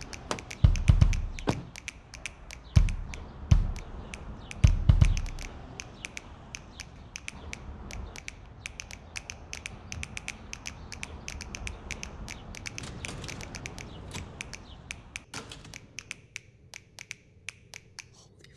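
Several heavy thumps, then a long run of quick small clicks and taps at a door lock as it is worked open, thinning out near the end.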